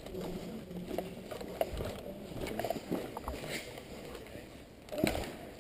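Footsteps and gear rustling of an airsoft player moving across a concrete floor strewn with debris, a string of scattered light knocks, with one louder knock about five seconds in.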